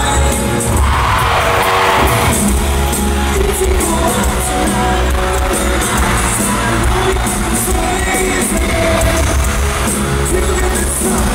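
Live pop-rock band playing with a male lead vocal, echoing through an arena. A brief surge of noise comes about a second in.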